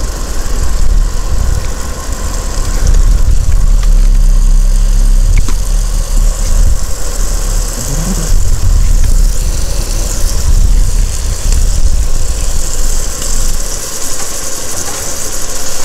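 Smash burger patties sizzling in hot grease on a griddle, a steady high hiss, over a loud, uneven low rumble.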